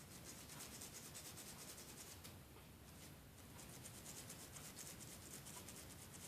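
Faint, rapid scrubbing strokes, a small tool rubbing over an iPod Classic circuit part to clean off Sprite residue, pausing briefly about two seconds in.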